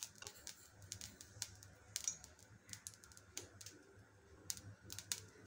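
Ghee melting in a hot aluminium kadai, giving faint, irregular crackles and ticks over a low steady hum.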